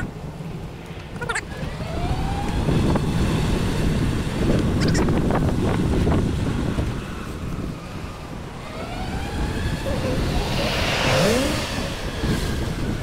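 Wind buffeting the microphone while riding along a street, with road noise from passing cars. A vehicle goes by loudest about eleven seconds in.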